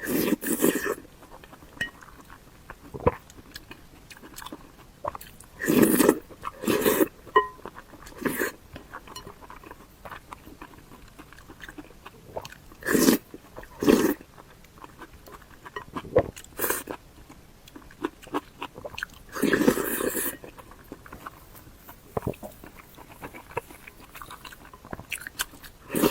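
Close-miked mouth sounds of a person eating: biting and chewing with small wet clicks, broken every few seconds by louder, half-second bites or slurps.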